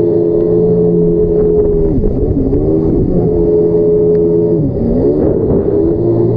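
Yamaha jet ski engine running at high revs, its pitch dropping and climbing back twice, about two seconds in and again near five seconds, as the throttle is eased off and opened again.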